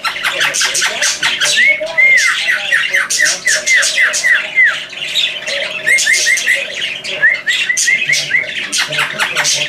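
Canary-winged parakeet (Brotogeris) calling with shrill, harsh squawks throughout, broken by runs of quick rising-and-falling whistles, several a second, about two seconds in, around six seconds and again near eight seconds.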